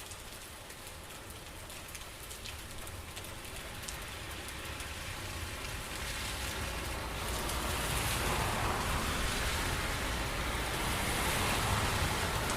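Steady rain falling, with single drops ticking in the first few seconds, then growing louder and denser about halfway through.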